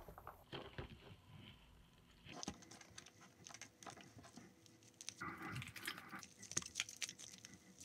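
Soft butter slime made by mixing Play-Doh into a slime base, squished, pressed and squeezed by hand: faint, sticky squishing with many small rapid clicks and pops, busier from about two seconds in.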